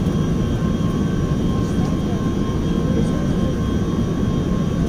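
Airbus A380 jet engines and airflow heard from inside the passenger cabin: a steady low rumble with several constant high tones running over it.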